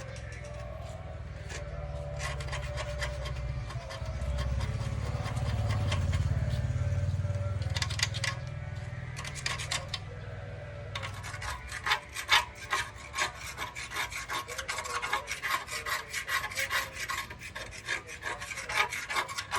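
Rapid, irregular hand scraping or rubbing strokes, typical of filing or brushing parts during a motorcycle restoration, getting busier and louder about halfway through. A low hum underlies the first half.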